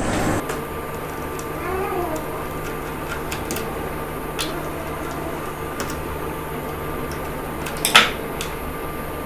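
Light handling clicks as wires are worked at the terminals of a wooden switchboard, with one sharper clack about eight seconds in, over a steady background hum.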